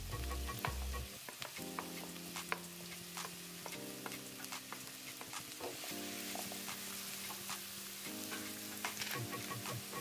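Chopped red onions sizzling in hot coconut oil in a nonstick pan, with the light scrapes and taps of a wooden spatula stirring them.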